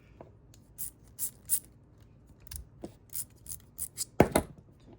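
Irregular small metallic clicks and taps from handling a Rocktol ST02 multi-tool and its screwdriver bits, with a sharp double click about four seconds in.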